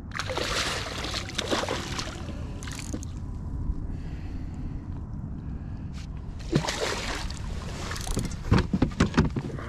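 Water splashing at a kayak's side in two noisy spells as a hooked red drum is brought in, over a steady low wind rumble on the microphone, with a quick run of dull thumps near the end.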